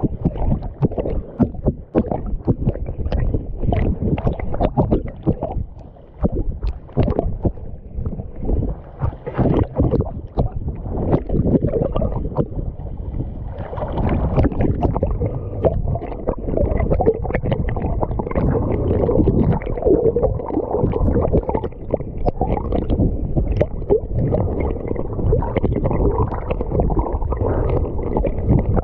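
Seawater splashing and sloshing against an action camera held at the surface, as a rapid run of choppy splashes. About halfway through it turns into a denser, steadier wash of water.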